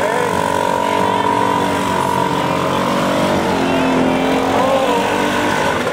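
Vintage Vespa scooter with sidecar, its two-stroke engine running loud as it pulls away past close by.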